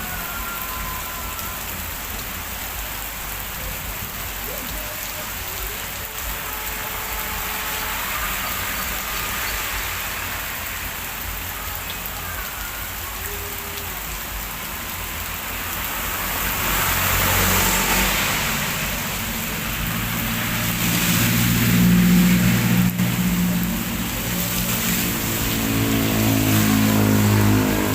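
Heavy rain falling steadily. About halfway through, a motor vehicle's engine comes in underneath the rain as a low hum that swells and fades several times.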